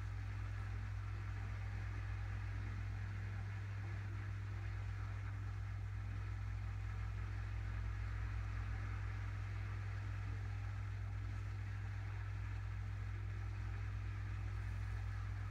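A steady low hum under a faint even hiss, unchanging throughout.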